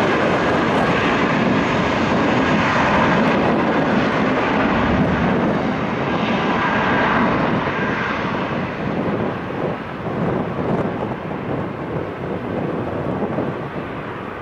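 Twin jet engines of an Airbus A320 at takeoff power during its takeoff roll: a loud, steady rush of jet noise that grows fainter from about eight seconds in as the aircraft draws away down the runway.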